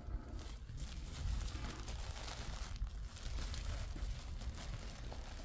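Bubble wrap and plastic-backed packing padding crinkling and rustling as hands unwrap them.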